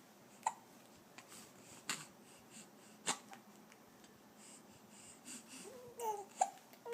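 A baby hiccuping: several short, sharp hics roughly a second and a half apart, with a brief whimper near the end.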